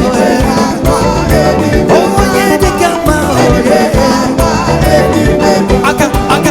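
A live band playing upbeat African gospel praise music, with a driving bass and drum beat and singing over it.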